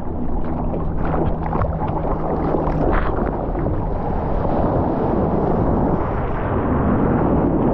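Ocean water rushing and splashing against a surfboard and a camera held at the surface, with wind buffeting the microphone. Splashes are busiest in the first three seconds, under a faint steady hum.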